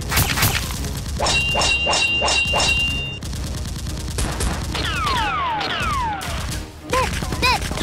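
Dubbed-in movie gunfire sound effects: a burst of shots, then a quick, even run of shots. Several falling whistles follow, with a couple of short swooping sounds near the end.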